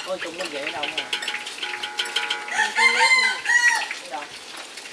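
A rooster crowing once, starting about two and a half seconds in and lasting about a second.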